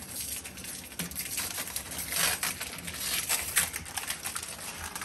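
Foil wrapper of a Pokémon booster pack being torn open and handled, an irregular run of crinkling crackles that is loudest about two seconds in.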